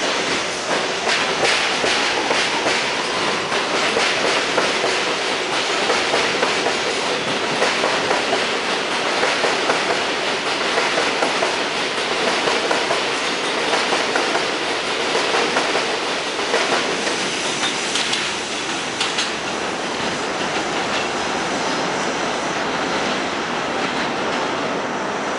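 A train of R62A subway cars on the 7 line pulls out of the station and runs past, its wheels clattering over the rail joints with a dense, steady rumble. The noise eases slightly in the last few seconds as the train draws away.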